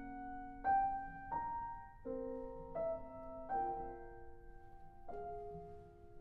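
Background music: slow, soft solo piano, single notes and chords struck about once a second and left to ring and fade.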